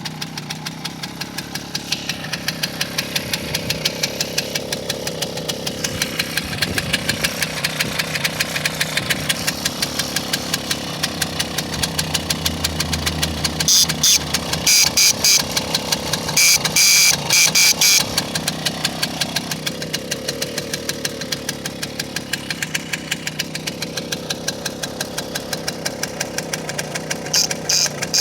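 Romet Kadet moped's small two-stroke engine idling with a steady pulse. In the middle, its original PRL-era electric horn is sounded in several short blasts, louder than the engine.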